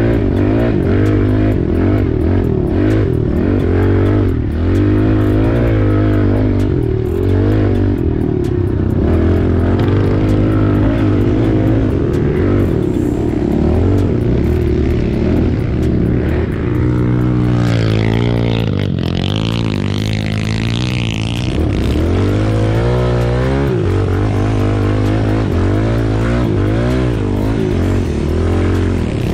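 Dirt bike engine heard from the rider's seat, revving up and down over and over as the bike is ridden along a dirt track, its pitch climbing and dropping with throttle and gear changes.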